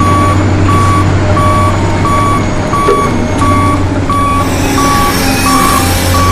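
Remote-control toy truck's reversing beeper, a steady high beep repeating about one and a half times a second, over a continuous low engine hum from its sound module.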